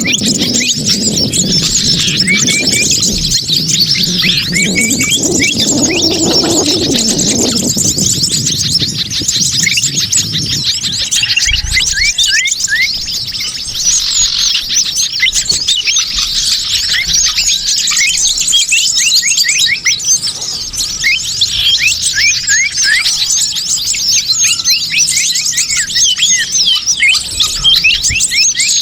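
Bird-lure recording of many small wild birds calling at once: a dense, busy chorus of rapid high chirps and twitters. A lower wavering call runs underneath for the first eight seconds or so.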